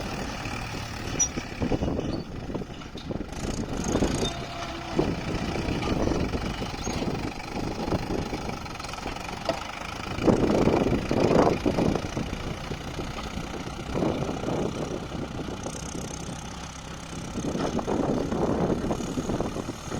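Diesel tractor engine running steadily while ploughing, swelling louder for a couple of seconds about halfway through and again near the end.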